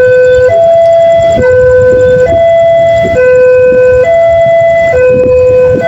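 Electronic railway level-crossing warning siren sounding its two-tone hi-lo call, a lower and a higher note alternating a little faster than once a second, loud and steady, warning that a train is approaching.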